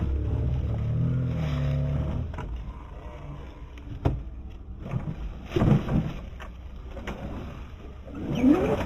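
Radio-controlled rock crawler's electric motor and gear drive running, its pitch wavering with the throttle for the first couple of seconds, then quieter with a sharp click about four seconds in and a few short knocks.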